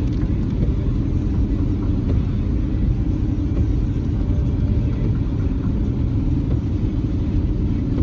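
Car driving in the rain: a steady low rumble of road, tyre and engine noise.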